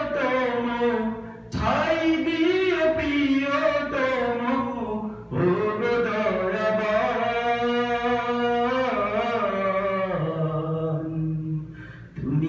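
A man singing a Bengali Islamic devotional song (hamd) unaccompanied, in long drawn-out, held phrases. He breaks for a quick breath about a second in, again about five seconds in, and near the end.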